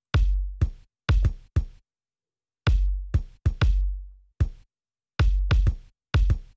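A recorded kick drum track played dry, with no EQ, as the unprocessed reference: a pattern of deep bass-drum hits in short groups with brief gaps between them, some hits ringing out with a long low boom.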